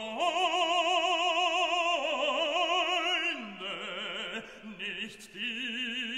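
Background music: an operatic voice singing long held notes with heavy vibrato, moving from note to note every second or two.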